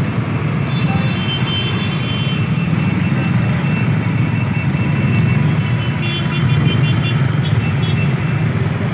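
Motorcycle engines and road traffic in a slow motorcycle convoy, heard from a moving bike as a steady dense rumble. There is a thin high tone in the first couple of seconds and a short run of high beeps about six seconds in.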